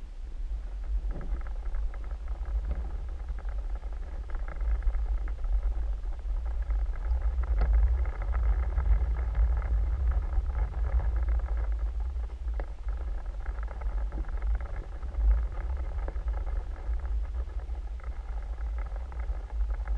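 Steady low underwater rumble picked up by a camera in a waterproof housing as it moves through the water, with a faint steady hum over it and a few faint clicks.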